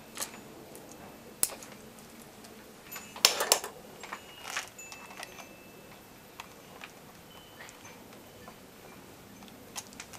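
Scattered metallic clicks and clinks of an 8mm wrench working a bolt on a motorcycle battery terminal, the loudest cluster about three seconds in.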